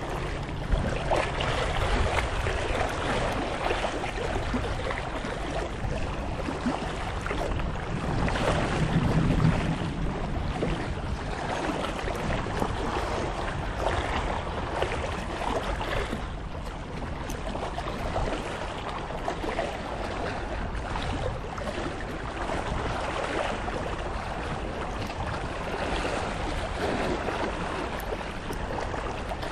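Steady wind rushing across the microphone over sea waves lapping, with a stronger gust of low rumbling wind about a third of the way in.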